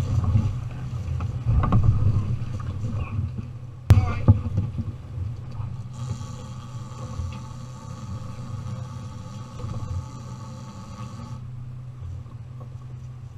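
Outboard motors running steadily at low speed, with water splashing at the stern and knocks on the deck over the first few seconds, one sharp knock about four seconds in; then a steadier, quieter run of the engines.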